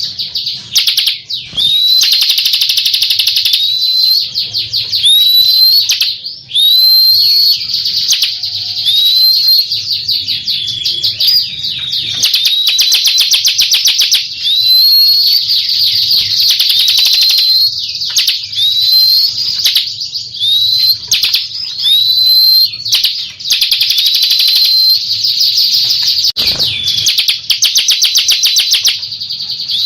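Bar-winged prinia (ciblek) singing without pause: a fast, chattering trill of high notes with short rising whistled notes about once a second.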